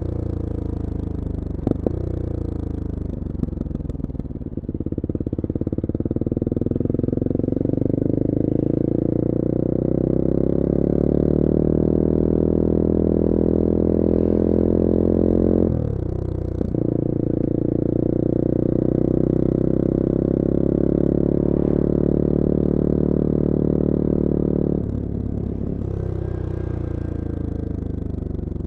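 Bullit Hero 250's CF Moto 250cc four-stroke engine running under way: the revs fall at first, then climb steadily, break sharply for a gear change about 16 seconds in, hold steady, and drop as the throttle closes about 25 seconds in.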